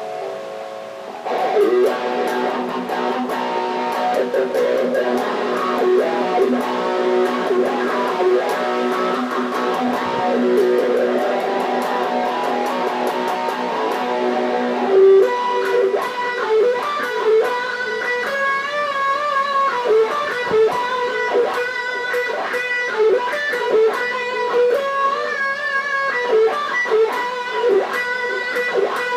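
Electric guitar playing an instrumental rock piece. Held notes ring over a steady low tone for the first half. From about halfway it turns to quick picked lead notes with bends and vibrato.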